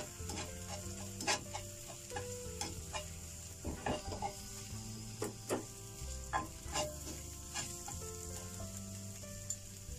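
A beaten egg frying with a steady sizzle in a nonstick pan, half-set, while long chopsticks stir and break it up, tapping and scraping the pan in irregular clicks.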